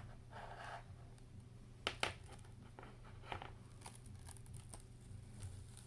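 Faint handling sounds of an iPad Air 2's glued screen being lifted off the body: light crackling and ticks, with two sharp clicks close together about two seconds in.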